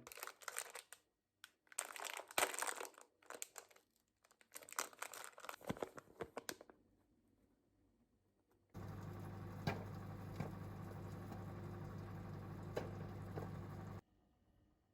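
Crinkling and rustling, like packaging being handled, in irregular bursts for about six seconds. Then a steady low mechanical hum with a few light clicks starts suddenly and cuts off about five seconds later.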